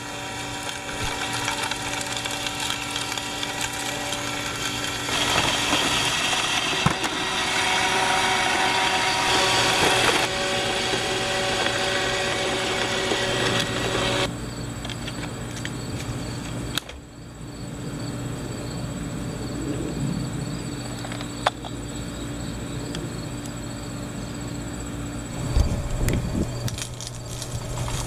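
Roomba robot vacuum running, its motors and brushes whirring steadily. The pitch and loudness shift several times, with a few sharp clicks in the later part.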